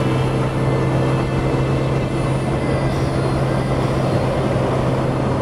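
Suzuki GN125H's air-cooled single-cylinder four-stroke engine running at a steady pitch while cruising at about 80 km/h and still pulling, with wind noise on the microphone.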